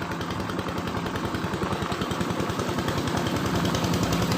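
A small engine chugging with a rapid, even beat, growing steadily louder as it comes closer.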